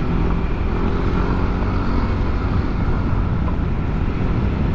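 Yamaha NMAX 155 scooter's single-cylinder engine running steadily at a cruise through a ROB1 Racing aftermarket exhaust, with a low, even exhaust note.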